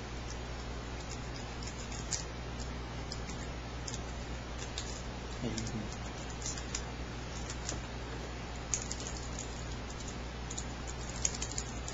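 Faint, irregular light clicks of a pick and tension wrench working inside a small padlock, over a steady low hum.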